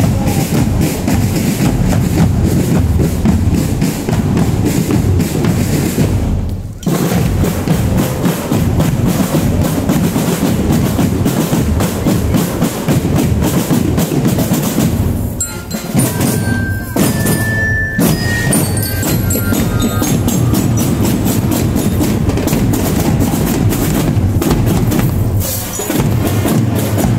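Marching drum band playing: bass drums and snare drums beating, with bell lyres ringing out a few high notes just after the middle. The drumming dips briefly twice.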